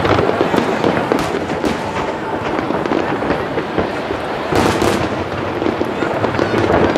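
Fireworks display: a dense, continuous run of aerial shell bursts, bangs and crackling, with a cluster of louder bangs about four and a half seconds in.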